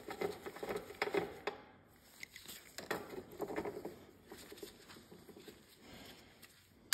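Light, irregular clicking and rattling of a socket and extension bar turned by hand, threading a spark plug into a Briggs & Stratton twin-cylinder engine's head; the clicks come thickest at the start, again around the middle, then thin out.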